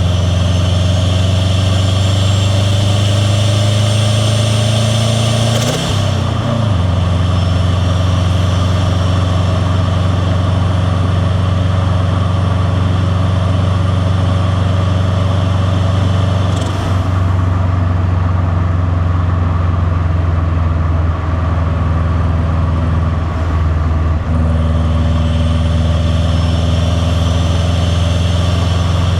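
Turbocharged 2.0-litre flat-four boxer engine of a Subaru WRX STi with a catless downpipe and titanium cat-back exhaust, pulling steadily with a deep exhaust rumble and intake and turbo hiss. About six seconds in the sound briefly breaks, as at a gear change. The high hiss fades at about 17 s and returns at about 24 s, as the throttle is lifted and reapplied.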